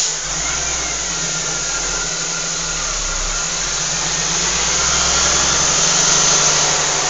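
Western Star log truck's diesel engine running at low revs, heard from inside the cab, slowly getting louder.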